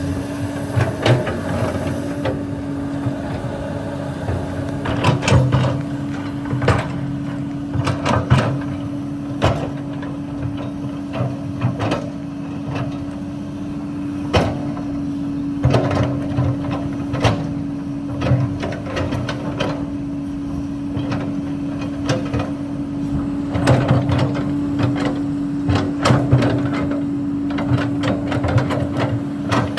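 Hydraulic excavator working limestone: its engine runs with a steady drone, while rock knocks and clatters against the bucket over and over as the machine digs and loads.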